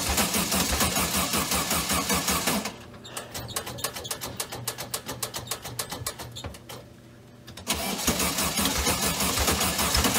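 Car engine cranking over on its starter, a fast, even chugging. It is loud for the first few seconds, drops quieter from about three seconds in, and comes back loud from about eight seconds in.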